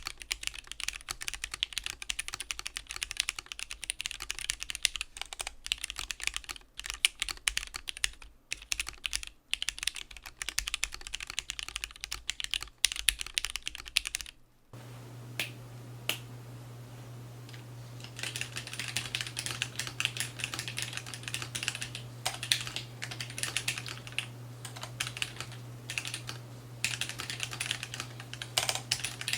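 Typing on a Keebio Quefrency split mechanical keyboard with lubed Gateron Black linear switches and PBT keycaps: fast, continuous keystrokes, a short break about halfway, a few scattered key presses, then steady typing again. A steady low hum sits under the second half.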